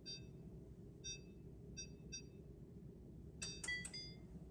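Oven's electronic control panel beeping at each key press as the oven is set to bake: four short, faint beeps, then a brief chime of a few notes about three and a half seconds in as it starts preheating.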